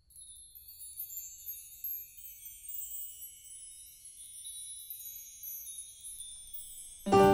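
Many high, tinkling chime notes opening a music track, with nothing low underneath; about seven seconds in, the full music enters loudly with sustained lower notes.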